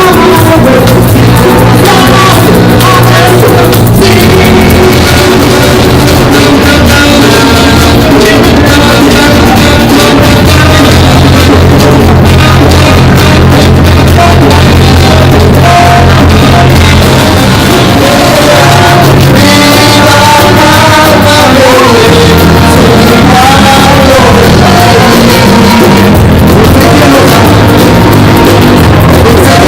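Live band playing at full volume with a voice singing, recorded on a mobile phone so the sound is badly distorted.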